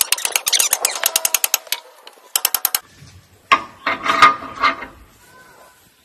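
Metal work on a model excavator's undercarriage: a fast, even run of sharp metallic clicks, about ten a second, for the first two seconds, and a second short run soon after. Then a few louder metal knocks with a brief ring as a hydraulic cylinder is fitted to its bracket.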